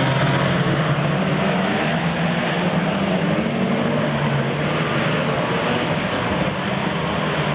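Saloon stock car engines running on the track, a loud, steady drone.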